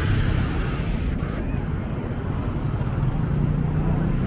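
Street traffic: motor vehicle engines running close by in a steady stream of noise, with a low engine hum growing stronger near the end.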